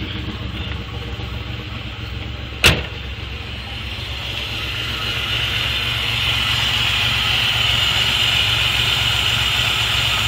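1990 Chevrolet Beretta engine idling very roughly, an uneven pulsing low rumble; the rough idle comes from a leaking intake manifold gasket, a vacuum leak. A single sharp knock about two and a half seconds in, and a hiss that grows louder from about four seconds on.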